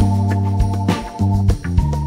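Background music: held melody notes over a bass line, with fresh notes struck every half second or so.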